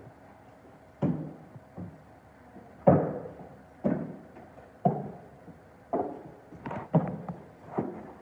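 Horse's hooves striking a wooden ramp obstacle at a walk: a series of hollow knocks, roughly one a second, coming closer together near the end.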